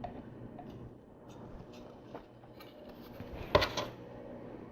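Small plastic LEGO pieces being handled and pressed together: faint scattered clicks, with a sharper cluster of two or three clicks about three and a half seconds in.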